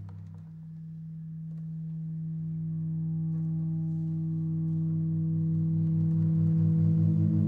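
Halldorophone, an electro-acoustic cello-like string instrument, sounding a long sustained feedback drone in pure, sine-like tones. Partway in, a low tone starts pulsing evenly beneath it as the drone swells gradually louder.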